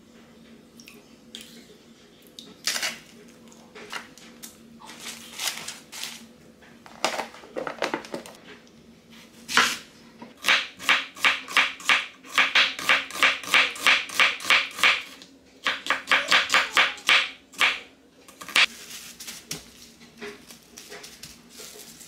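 A chef's knife slicing an onion thinly on a wooden cutting board: quick, even chopping strokes about four a second in two runs, after some scattered clinks and knocks of kitchen handling.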